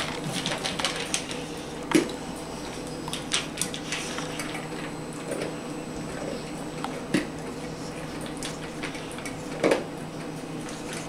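A Dogue de Bordeaux eating dry kibble from a stainless steel bowl: irregular chewing and clinks of food and muzzle against the metal bowl. Sharper knocks come about two seconds in, around seven seconds and near the end, the first the loudest.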